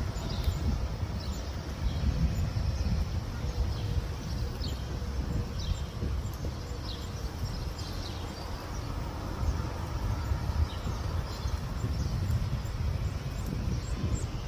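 Birds chirping outdoors: short, high, falling chirps about once a second, over a steady low rumble.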